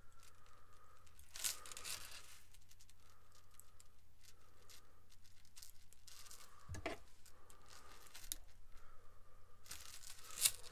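Blackened stainless steel chainmail rings clicking and rustling as the mesh is handled and rings are worked into it, with a few louder metallic clicks.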